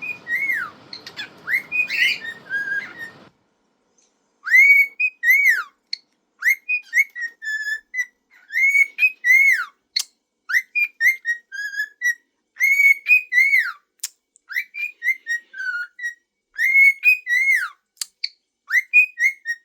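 Pet cockatiel whistling its song: a long string of short whistled notes that rise and fall, repeated over and over, with a brief pause about four seconds in.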